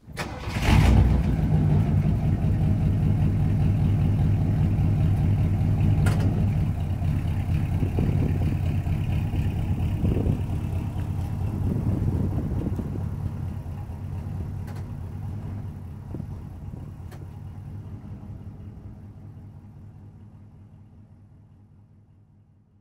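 1964 Cadillac's 429 V8 starting up about a second in, then idling steadily with a couple of brief revs. The sound fades out gradually toward the end.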